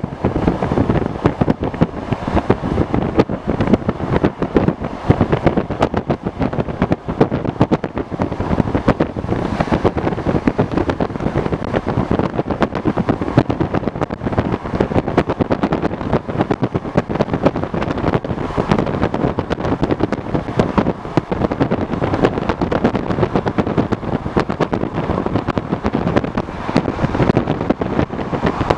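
Electric commuter train running at speed, heard from inside the carriage: a steady, loud rumble and rapid rattle of wheels on track.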